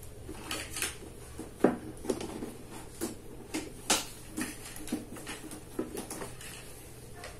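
Irregular light clicks and clinks, a dozen or so spread over several seconds, over a faint steady low hum.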